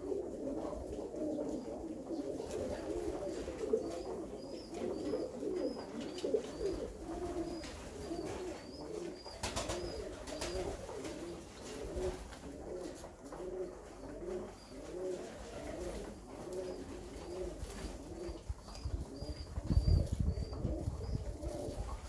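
A flock of Alföldi-Körösi tumbler pigeons cooing, many low coos overlapping continuously. About two seconds before the end comes a louder flurry of wing flapping.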